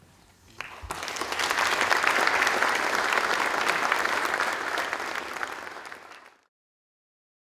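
Audience applauding: a few claps just under a second in, swelling to full applause, then tapering and cutting off suddenly about six and a half seconds in.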